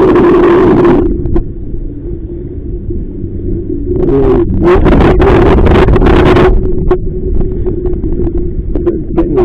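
Strong wind buffeting the microphone on a small inflatable boat under sail: a steady low rumble, with two loud gusts of rushing noise, one at the start and one from about four to six and a half seconds in.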